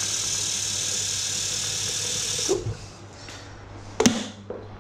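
Tap water running steadily into a kettle being filled, shut off suddenly about two and a half seconds in, followed by one sharp click a little later.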